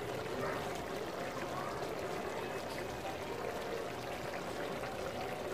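Chicken adobo simmering in its vinegar sauce in a frying pan, a steady faint bubbling hiss.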